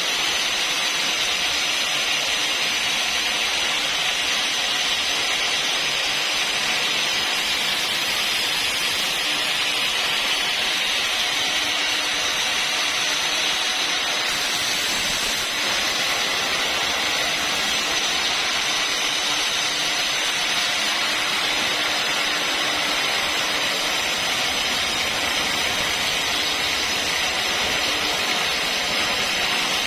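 Sawmill saw cutting a log lengthwise into planks, a steady loud hissing cut that keeps going without a break.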